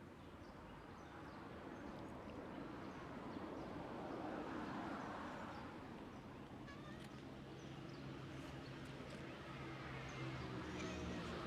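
Faint outdoor background in which a vehicle passes about four seconds in, then a steady engine hum starts and grows louder toward the end.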